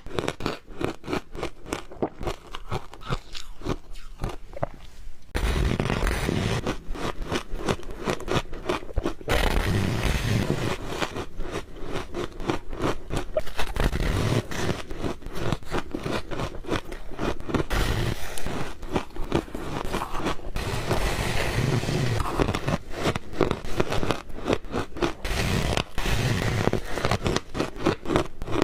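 Ice being bitten and chewed close to the microphone: rapid, dense crunching and cracking. It grows louder and thicker about five seconds in.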